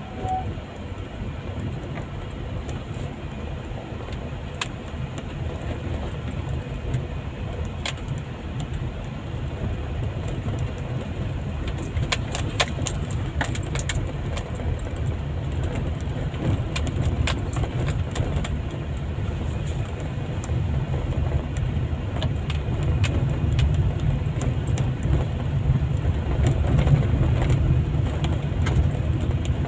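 Car's engine and tyre rumble heard from inside the cabin while driving on an unpaved gravel road, with scattered rattling clicks, a cluster of them about halfway through. The rumble grows somewhat louder toward the end.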